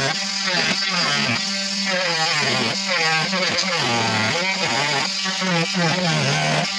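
Cordless oscillating multi-tool cutting into the ends of a PVC tee fitting: a steady motor buzz whose pitch keeps wavering up and down as the blade bites into the plastic and eases off.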